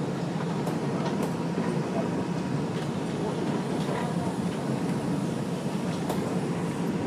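An R142 subway car running at speed, heard from inside the car: a steady rumble with scattered sharp clicks from the wheels on the track.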